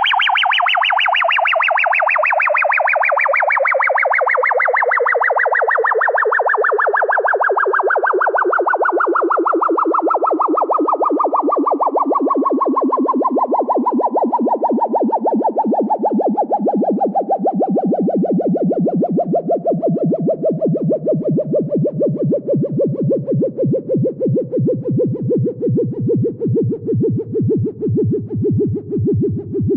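Synthesized vintage sci-fi flying saucer landing sound effect: a fast-warbling electronic tone that slides slowly and steadily down in pitch, its pulsing growing more pronounced toward the end.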